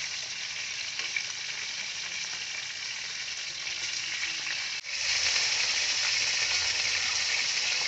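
Soy-marinated chicken wings sizzling and frying in hot oil in a wok. The steady hiss breaks off briefly about five seconds in and comes back louder.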